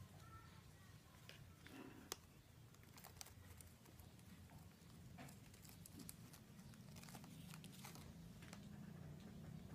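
Near silence with a low hum, broken by faint, scattered small clicks and scratches from a hamster moving about its plastic cage.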